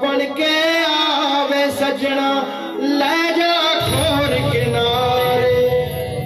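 A male singer sings a Punjabi song live with band accompaniment, heard through the stage loudspeakers from among the audience. A deep bass part comes in about four seconds in.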